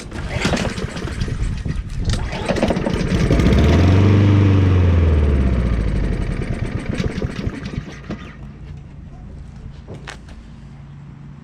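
Honda Harmony II lawnmower's single-cylinder overhead-cam engine is pull-started and sputters into life on starting fluid. It speeds up about four seconds in, then slows and dies near the end. This is typical of an engine running only on the starting fluid, with a carburetor that the owner thinks needs cleaning.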